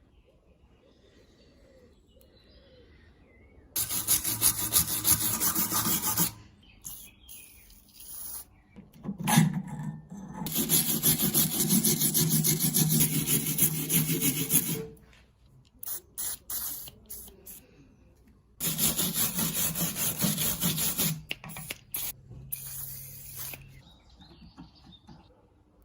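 Rusty metal wrench being scraped and abraded to strip rust: three long bursts of rough, noisy scraping a few seconds each, with short strokes in between.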